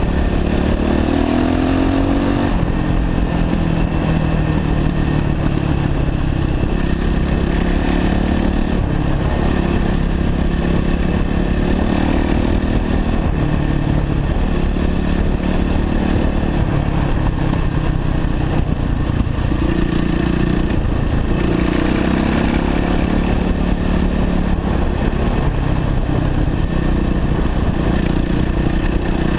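The single-cylinder four-stroke engine of a 2009 Yamaha YZ450F dirt bike running while it is ridden down a steep dirt road. The revs rise and fall every few seconds with the throttle.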